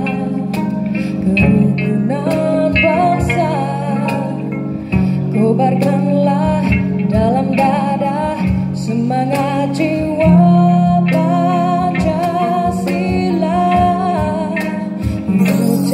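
Two electric sasandos, the Rote bamboo tube zither, plucked in a flowing accompaniment with a cajon tapping the beat, under a wavering sung melody with vibrato.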